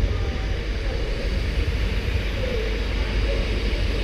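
Diesel multiple unit passing, a steady low rumble of its engine and wheels on the rails with a constant hiss over it.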